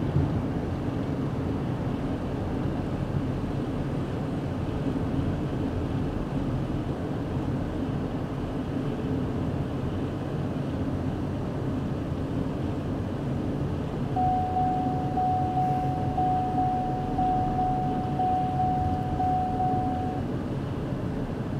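Steady rumble of a car driving, heard from inside its cabin. About two-thirds of the way in, a high electronic beep repeats about once a second for some six seconds.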